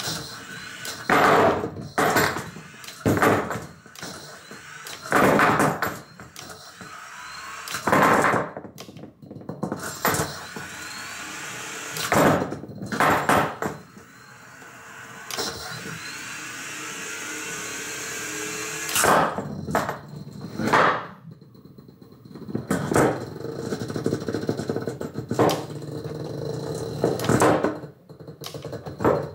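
A 3 lb beetleweight combat robot's steel spinning weapon spinning up again and again with a rising whine, while the robot is flung about by the weapon's gyroscopic force and slams loudly into the floor and walls of its wooden test box, a bang every second or two. These are self-righting tests, the spinning weapon used to throw the robot back onto its wheels.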